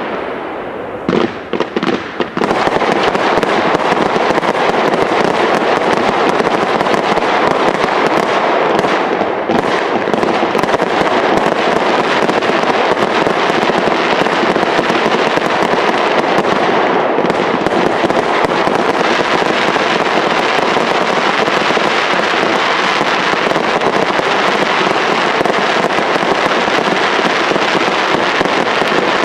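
Aerial fireworks display: a dense, continuous barrage of shell bursts and crackling. It opens with a short lull and a few separate bangs in the first couple of seconds before the barrage fills in.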